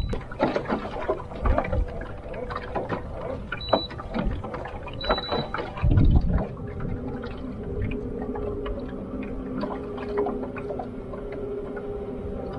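Choppy water slapping and knocking against a small boat's hull, with a few short electronic beeps. From about six seconds in an electric trolling motor hums steadily as the boat moves on.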